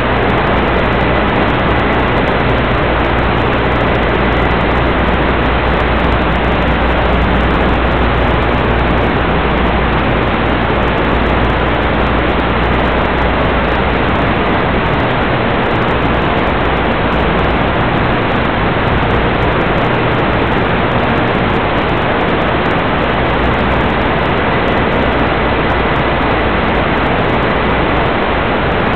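Steady static hiss from the audio channel of a 1.2 GHz analog FPV video link, as recorded on the receiving goggles.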